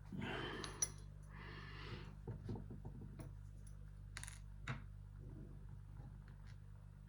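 Small metal lock parts being handled while a pin-tumbler padlock is taken apart: scattered light clicks and taps of pins, springs and tools, with a sharper click just under a second in and a bright high tick about four seconds in. A faint steady low hum runs underneath.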